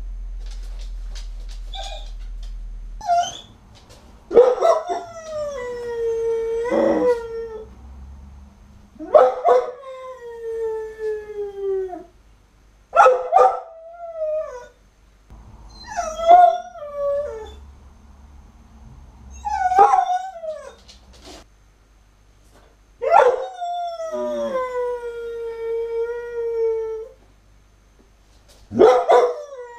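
A dog howling over and over at being left alone: about eight long howls a few seconds apart, each opening with a sharp yelp and sliding down to a held lower note.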